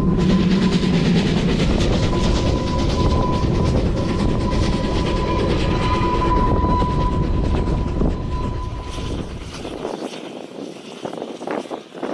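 NG/G16 Garratt steam locomotive and its narrow-gauge train passing, a loud dense rumble and rattle of wheels and coaches with a steady high tone running through it. The sound fades away after about eight seconds.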